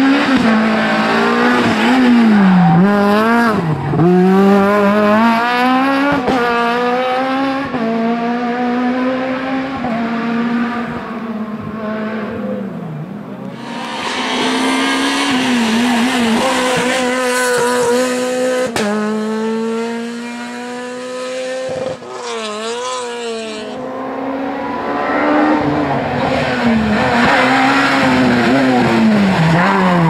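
Rally cars, a Renault Clio and a Peugeot 207, taken hard through a tarmac hairpin one after another, engines revving high and dropping with each gear change and lift. Tyres squeal at times through the corner.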